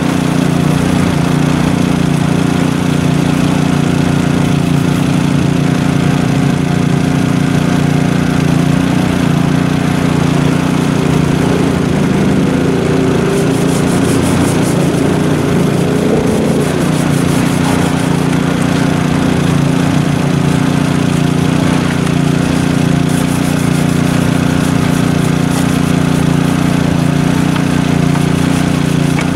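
An engine running steadily at a constant speed, a loud unbroken drone. In the middle and again near the end come runs of quick hissing squirts from a trigger spray bottle spraying degreaser.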